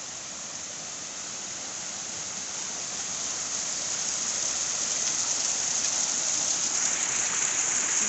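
Small waterfall cascading over rock slabs: a steady rushing hiss of falling water that grows louder as the camera nears the fall.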